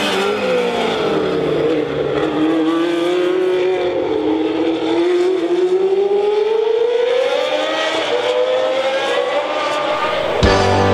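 Formula One race car engines running at speed. The engine note drops within the first two seconds, then climbs steadily as the cars accelerate. Rock music comes in just before the end.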